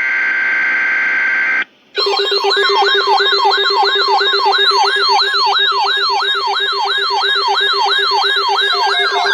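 Emergency alert broadcast tones. A block of steady data tones, like an EAS/SAME header, stops about a second and a half in. After a short gap a synthetic alert siren starts: a falling warble repeating about three times a second over a steady low tone.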